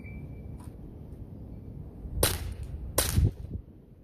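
Two shots from a Sig Sauer P320 X-Carry CO2 blowback BB pistol, about 0.8 s apart, each a sharp crack over a low steady rumble. A brief high beep sounds at the very start.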